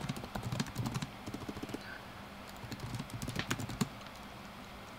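Typing on a computer keyboard: two quick runs of keystrokes with a pause of about a second between them, the second run ending a little before the end.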